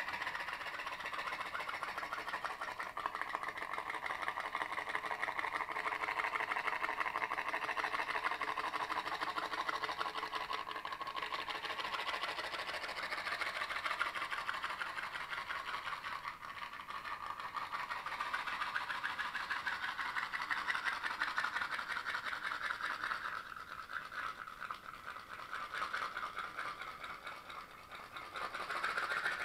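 Toy pop-pop boat's little steam engine running: a fast, continuous buzz of tiny pops that turns uneven in the last few seconds.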